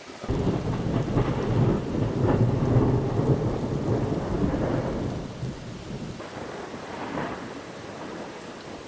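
Thunder: a loud rumble breaks out suddenly and rolls on for about five seconds before fading, with a smaller rumble about seven seconds in, over steady rain.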